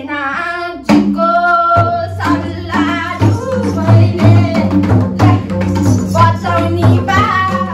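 Madal, the Nepali double-headed barrel drum, beaten in a quick, even folk rhythm under a sung Nepali folk melody.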